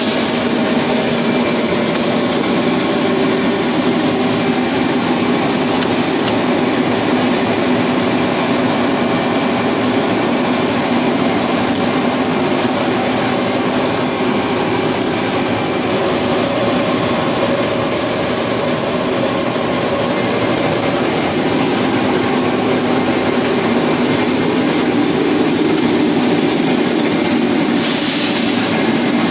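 Steady running noise of a ⌀70 LDPE blown film extruder line in production, with a thin, high, steady whine over it.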